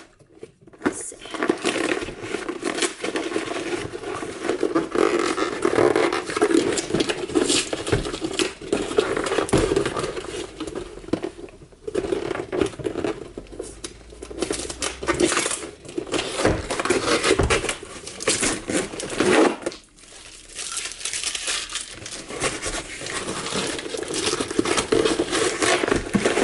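Packaging being opened by hand: repeated crinkling and tearing, with many short crackles.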